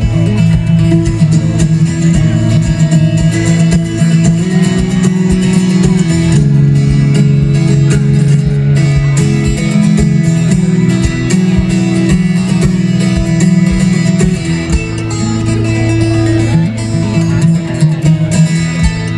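Solo amplified 12-string acoustic guitar played fingerstyle: quick, driving picked notes over sustained low ringing bass notes, heard through a live stage sound system.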